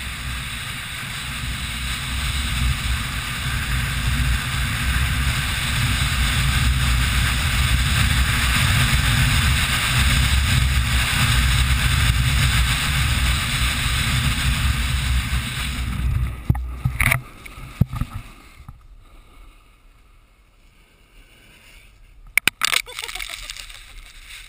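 Rushing noise of wind on a handheld camera's microphone and a snowboard sliding over snow during a run. It grows louder over the first several seconds, drops away sharply about sixteen seconds in, and a few sharp knocks on the microphone follow.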